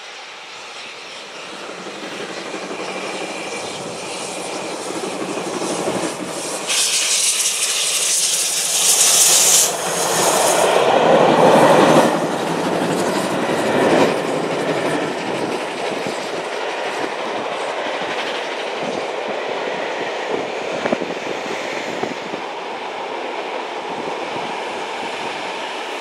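Steam-hauled passenger train passing close by. It builds up to a loud hiss about seven seconds in and its loudest moment as the locomotive goes past, then a long string of coaches rolls by with a steady clickety-clack of wheels over rail joints.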